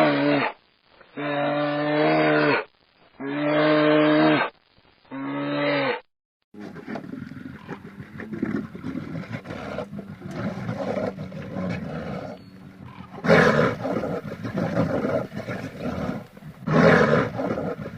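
Large wild animal calls: a series of long, pitched calls about a second and a half each, then a different recording of rougher, noisier calls with louder outbursts in the second half.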